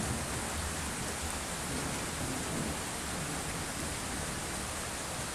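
Steady thunderstorm rain falling, an even hiss.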